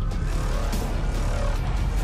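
Background music with a steady deep bass.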